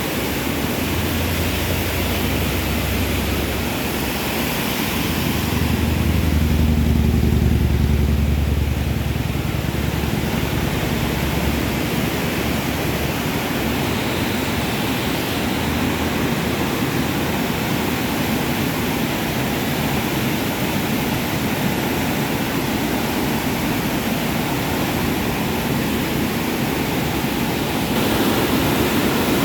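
Floodwater of a swollen river rushing steadily. A low rumble swells for a few seconds about six seconds in and then fades back.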